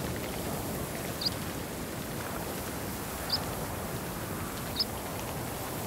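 Wind rushing steadily over open moorland grass, with a small bird's short high call repeated three times, roughly every one and a half to two seconds.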